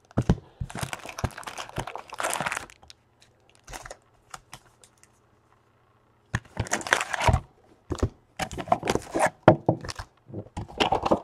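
Foil-wrapped trading card packs crinkling as they are handled and set down, in two spells of rustling with a few quieter seconds of scattered faint clicks in between.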